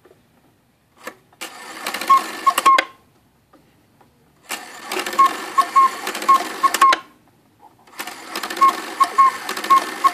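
Antique cuckoo-and-quail clock movement running its quarter-strike train, a whirring, clicking mechanism, while the bellows whistle sounds the quail's short three-note call. It runs three times, with the quail call heard once in the first run, twice in the second and repeatedly in the third.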